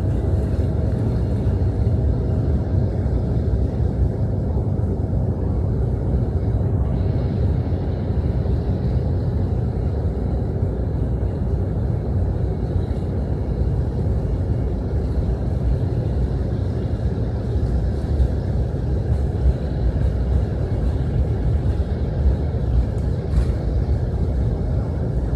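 Steady low rumble of an airliner taxiing, heard inside the cabin: the engines running and the wheels rolling on the pavement. A faint high whine joins in about a quarter of the way through.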